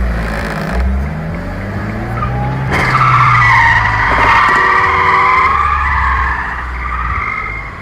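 Car engine revving up, rising in pitch, then tyres squealing loudly with a wavering screech from about three seconds in, dying away near the end.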